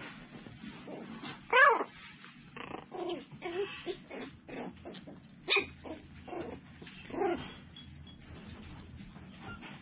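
Seven-week-old tiny toy poodle puppies yipping and barking while they wrestle in play. The loudest yip comes about a second and a half in, another sharp one around five and a half seconds, and smaller yips and whimpers follow in between.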